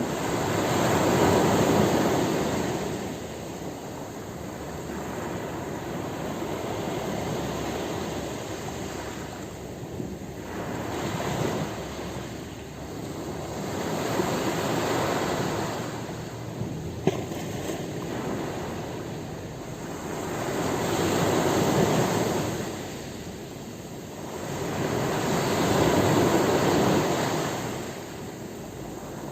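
Ocean waves breaking on a beach, a rushing surf that swells and falls away every four to six seconds. There is a single brief click about seventeen seconds in.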